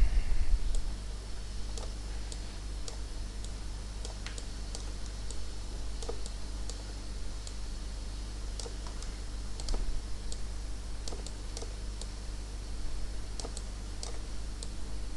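Scattered, irregular clicks of a computer mouse and keyboard being worked, over a steady low electrical hum.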